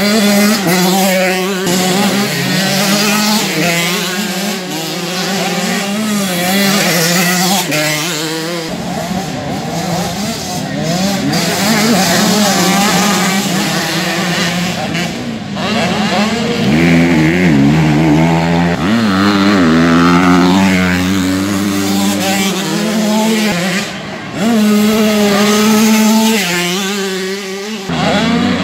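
Several motocross bikes racing on a dirt track, their engines revving up and dropping back again and again as riders accelerate, shift and ease off over the jumps, with more than one engine often heard at once. The sound dips briefly about three quarters of the way through, then picks up again.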